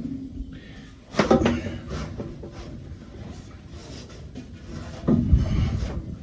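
Two heavy clunks, one about a second in that rings briefly and a deeper one near the end, with lighter knocking and scraping between them, as parts are shifted and wedged inside a New Holland RB560 round baler during a bearing repair.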